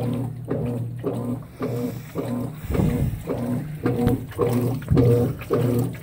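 Consul 16 kg top-load washing machine agitating a load of duvet and blanket in water: the drive motor hums in short, even pulses about two to three times a second, with water sloshing in the drum.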